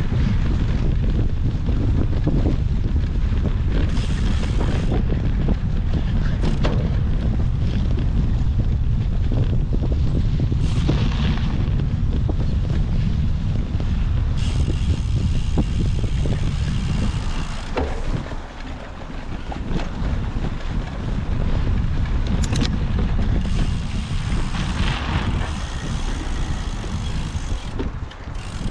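Wind buffeting the microphone of a camera riding along on a cyclocross bike, with occasional clicks and rattles; the rush eases and wavers about two-thirds of the way through.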